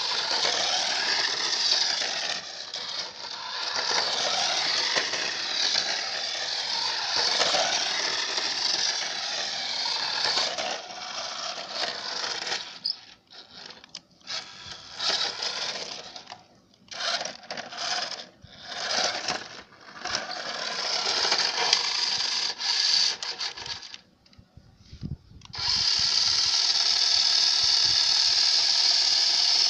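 Toy RC car's small electric motor and gears whining as it drives on asphalt, the pitch rising and falling as it turns. About halfway through it goes in short stop-start bursts, then runs steadily again for the last few seconds.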